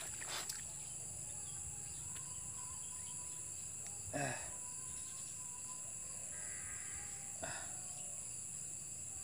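Steady high-pitched chirring of insects, with three brief, faint sounds spread through it.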